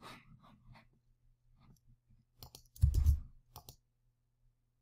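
A few scattered clicks from a computer mouse and keyboard while a program is being worked, with a heavier thump about three seconds in, over a faint steady hum.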